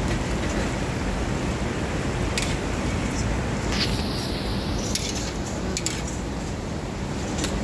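Wire spider strainers clinking against each other and the rim of a large aluminium frying wok several times, over a steady background hiss.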